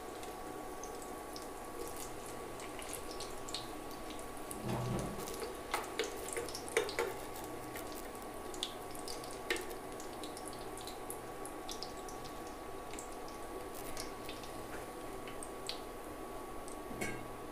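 Battered green chillies (mirchi bajji) frying in hot oil in a kadai, the oil sizzling and crackling steadily. A steel spoon knocks and clinks against the pan and plate a few times about five to seven seconds in.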